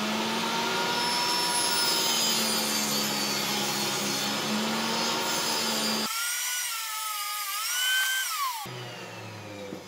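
Table saw running steadily, its blade cutting a pine block. About six seconds in the saw sound breaks off abruptly for a couple of seconds, then comes back and fades away.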